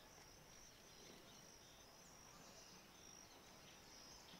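Faint, steady high-pitched insect chirring over a low hiss of outdoor ambience.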